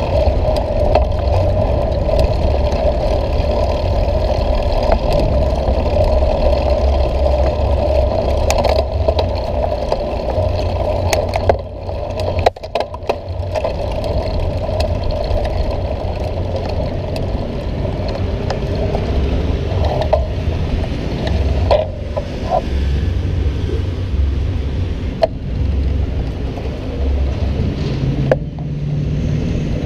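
Bicycle ride heard from a camera mounted low on the bike: a steady wind rumble on the microphone, with tyres and frame rattling over stone paving and city traffic behind. It dips briefly about twelve seconds in.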